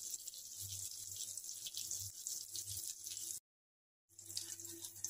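Tomato pieces, cumin and a dried red chilli sizzling in hot oil in a kadai: a steady, fine crackling hiss. It breaks off completely for under a second about three and a half seconds in.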